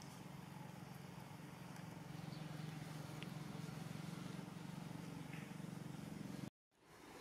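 A steady, low, engine-like hum, a little louder after about two seconds, that cuts out abruptly for a moment near the end.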